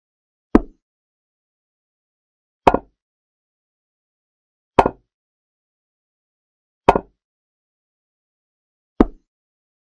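Chess-app piece-move sound effect: five short clicks of a piece being set down, one about every two seconds as each move plays, with dead silence between.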